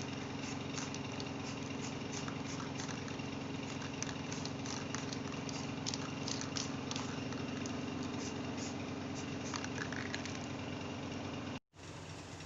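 A steady low machine hum with scattered light clicks and taps; it cuts off abruptly near the end and a quieter hum resumes.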